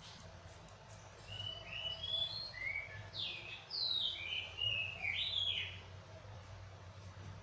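A bird singing a quick run of short chirping notes, gliding up and down, from about a second in until near six seconds, over a faint steady low hum.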